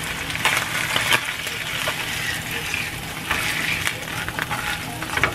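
Salmon fillet sizzling in hot oil in a nonstick frying pan, a steady hiss, with a few short scrapes and knocks as a spatula is worked under the fillet to turn it.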